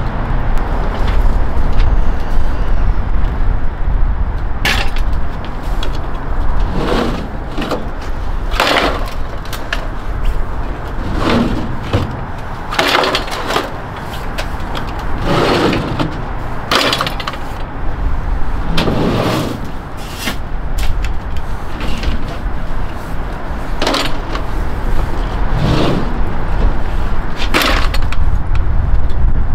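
Packs of plastic 2-liter soda bottles knocking and thudding as they are pulled from a delivery truck's bay and stacked onto a hand truck, a dozen or so irregular clunks. A steady low rumble runs underneath.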